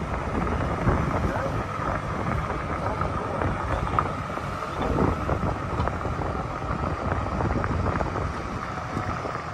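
Moving golf cart: wind buffeting the microphone over the cart's running motor and tyres on the paved path, with a faint steady whine.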